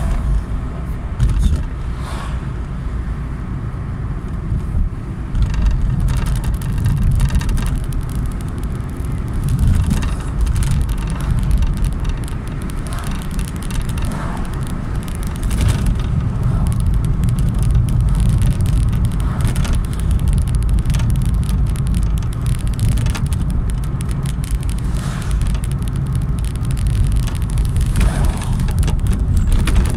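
Steady low rumble of a moving car, road and engine noise with scattered faint clicks.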